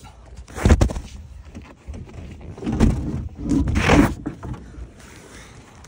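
Rustling and scraping as a phone is moved about inside a vehicle's cabin. There is a short burst about a second in and a longer burst around three to four seconds in.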